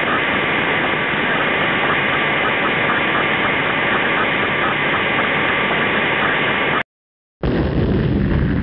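Sound effect of a jet plane taking off: a loud, steady engine roar with a high whine running through it, cutting off suddenly about seven seconds in. After a short gap, the deep rumble of a rocket launch starts near the end.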